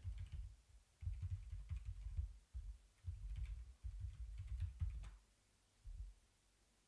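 Typing on a computer keyboard, heard mostly as muffled low thumps in quick runs with faint key clicks, a last single thump about six seconds in.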